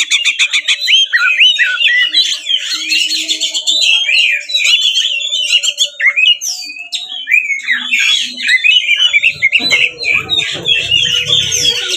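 Oriental magpie-robin (kacer) singing a fast, continuous, varied song packed with mimicked notes, opening with a quick rattle. A low rumble runs under the song in the last couple of seconds.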